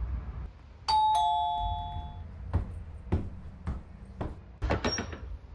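Doorbell chime: a two-note ding-dong, a higher note then a lower one, rings about a second in and fades away over about a second. A few soft thuds follow, about one every half second.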